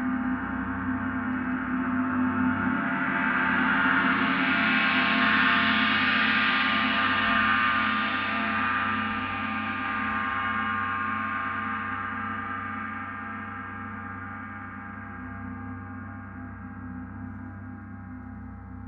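Large hanging gong played with soft mallets, ringing with many sustained tones. Its upper overtones build to a peak about five seconds in and then slowly fade away over a steady low hum.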